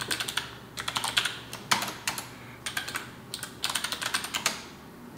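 Typing on a computer keyboard: several bursts of quick keystrokes with short pauses between them.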